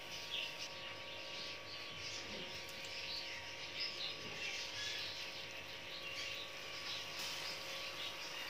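Hot oil sizzling with fine crackling in a wok as batter-coated potato snacks deep-fry.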